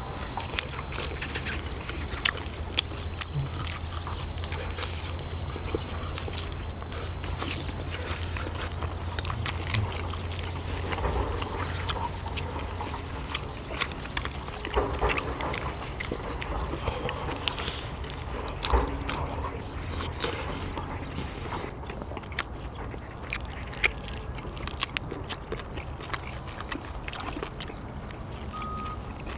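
Eating at the table: chewing and mouth noises with frequent short, sharp clicks of utensils on dishes. A steady low hum runs through the first half.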